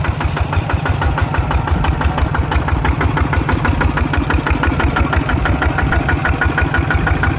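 An engine idling steadily, with an even pulse of about six or seven beats a second over a strong low hum.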